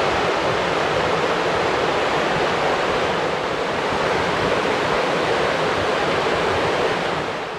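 Steady rushing of a creek, an even hiss that dies down near the end.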